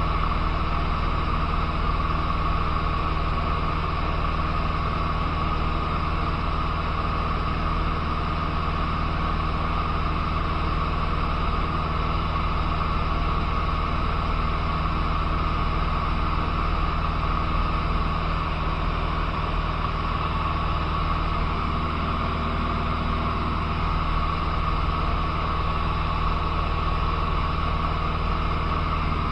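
Cessna 150's four-cylinder Continental O-200 engine and propeller droning steadily in flight, heard inside the cabin together with the rush of the airflow. The pitch and level hold constant.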